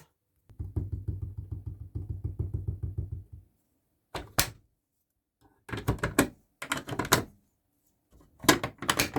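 Plastic fire detector parts being handled: a quick, low rattling run of knocks for about three seconds, then several sharp separate clicks.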